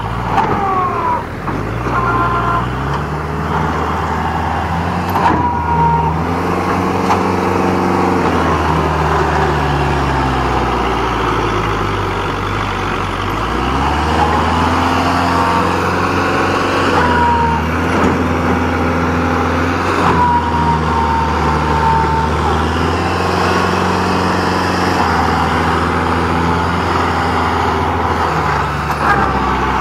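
Kubota MU4501 tractor's four-cylinder diesel engine working hard under heavy load, its pitch rising and falling several times as it revs up and eases off. It is straining to haul a loaded two-axle trolley stuck in deep rice-field mud.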